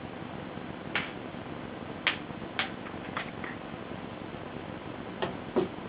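A cat playing with a thin white cord on a wooden tabletop, making about seven light, irregular taps and clicks as the cord and the cat's paws knock the wood, over a steady hiss.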